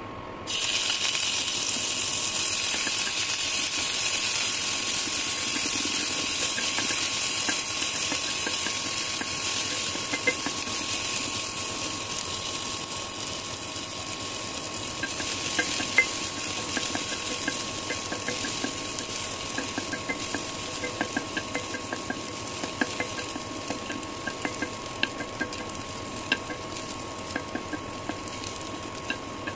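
Sliced onions sizzling in hot oil in an aluminium pot. The hiss starts suddenly as they go in and eases a little later. From about halfway, a wooden spatula stirring the onions adds quick little clicks and scrapes against the pot over the sizzle.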